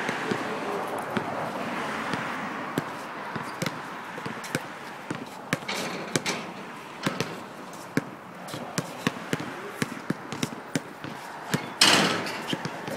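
A basketball dribbled on a hard outdoor court: a run of sharp bounces at an uneven pace. A louder burst of noise comes near the end.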